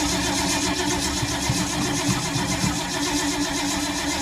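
1952 Ford's starter motor cranking the engine in a steady rhythm without it catching. This is a hard start that the owner blames on a lack of spark.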